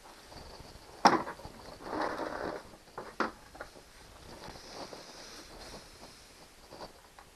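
Handling sounds of metal engine parts and tools: one sharp knock about a second in, then a scraping rustle, and a few lighter clicks and taps.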